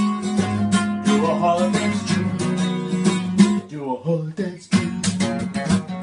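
Background music with an acoustic guitar strummed in a steady rhythm.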